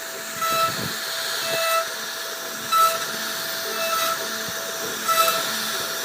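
CNC router spindle carving wood: a steady high whine that drops in and out every second or so, over a hissing cutting noise.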